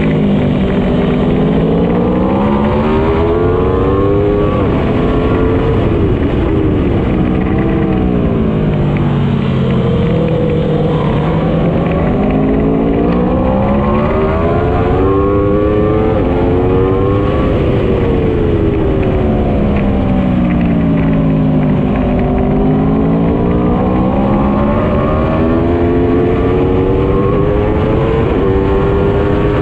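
Motorcycle engine running hard on a racetrack, its pitch sweeping up and down every few seconds as the rider accelerates out of corners and eases off into them. Heavy wind rush on the onboard microphone runs under it.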